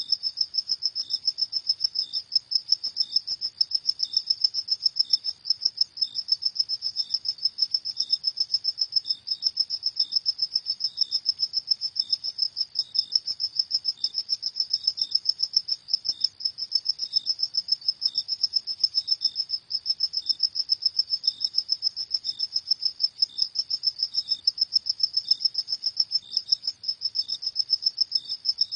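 Crickets chirping at night in rapid, evenly repeated high-pitched pulses that keep up without a break.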